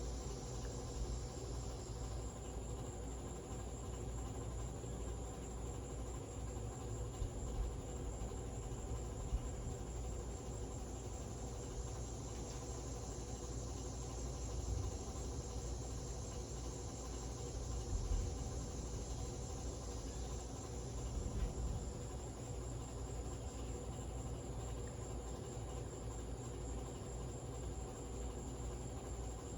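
Harbor Breeze Lakeside II ceiling fan running slowly with a steady motor hum, its bad capacitor leaving it slow on every speed. A steady high-pitched chirring sits over it, with a few soft knocks.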